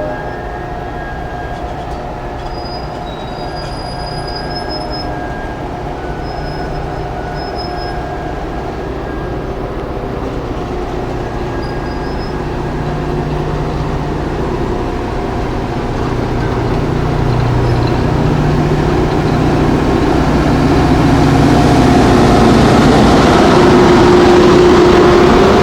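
Passenger train moving along the track, its wheels squealing in thin high tones. It grows steadily louder as it approaches, with a rising rush of rolling noise over the last several seconds.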